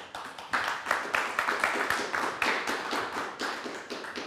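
Audience applauding: a run of separate hand claps that starts suddenly and dies away near the end.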